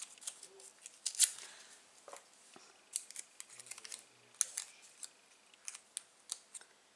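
Scattered light clicks, taps and rustles of hands handling a roll of glue dots on its paper backing. The strongest click comes about a second in.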